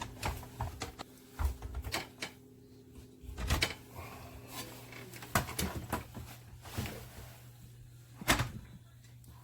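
Scattered clicks and knocks of a dishwasher's plastic touchpad control assembly being handled and its connector worked, the loudest knock near the end, over a steady low hum.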